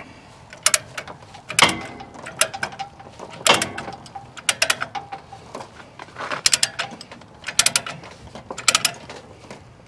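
Peerless Quikbinder Plus ratchet chain binder being cranked by hand, its pawl clicking in short runs about once a second as it tightens the tie-down chain.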